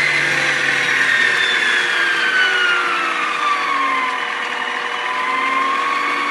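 Bodum Bistro electric stand mixer's 700-watt motor running on speed one with a high whine. The pitch slides down between about one and four seconds in, then holds steady: the mixer starts out fast and slows to its set speed.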